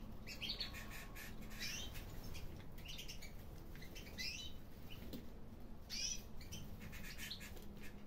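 Red mosaic canaries chirping in short bursts of high calls, every second or two, with a cluster of calls near the end.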